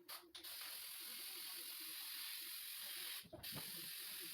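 Spray can of truck bed-liner coating hissing in two long, steady sprays, with a short break about three seconds in.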